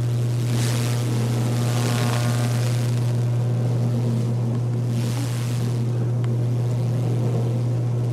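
Microwave oven running: a steady low hum from the magnetron and fan, with a hiss that swells and fades a few times.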